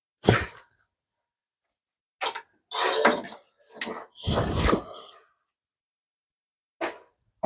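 Short bursts of metallic clanking and scraping from tools and exhaust parts being worked loose from their rubber hangers, with a heavier thud about four seconds in.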